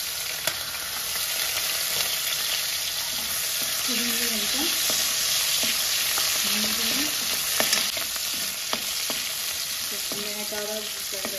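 Chopped onion, capsicum, garlic, ginger and green chilli sizzling steadily in hot oil in a pan while being stirred, with scattered sharp clicks of the spatula against the pan.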